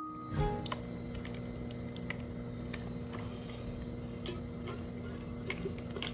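Quiet kitchen sounds while thick cream is poured from a pan into a plastic tray: a steady low hum with scattered light clicks and ticks, and a soft knock just after the start.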